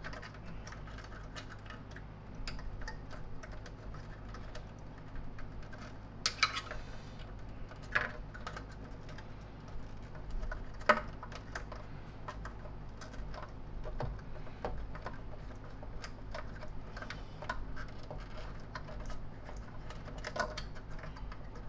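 Scattered light clicks and taps of small plastic vacuum-cleaner parts and wires being handled and fitted, with a few sharper knocks, over a steady low hum.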